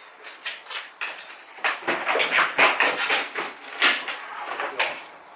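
Packaging being trimmed and handled: a dense run of crinkling, scraping and clicking that picks up about two seconds in.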